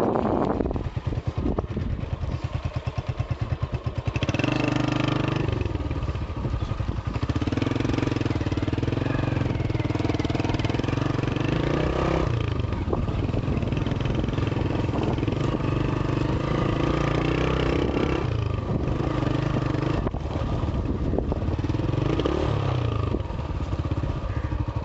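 Honda CB125 motorcycle engine running under way, revving up about four seconds in, with its pitch rising and falling as the throttle is worked.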